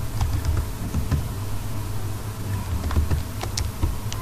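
A steady low buzz, with a few scattered clicks of computer keys as a word is typed.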